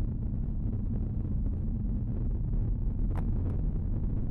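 Car cabin noise while driving: a steady low rumble of road and engine noise, with two short clicks a little after three seconds in.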